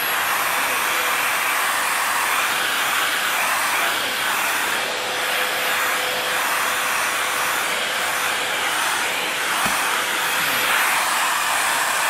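Corded stick vacuum cleaner running steadily: a constant rush of suction air with a thin high whine from the motor.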